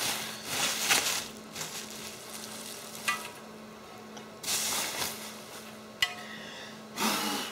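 Plastic bubble wrap crinkling and rustling in several bursts as it is pulled off an aluminium plate, with a couple of sharp clicks in between.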